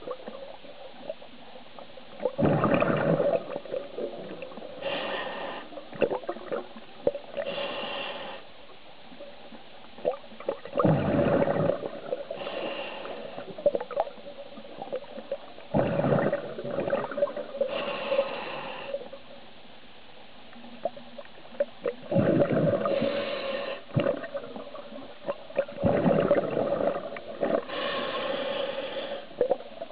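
Scuba diver breathing through a regulator underwater. Gurgling bursts of exhaled bubbles alternate with shorter hissing inhalations, several breaths over the stretch.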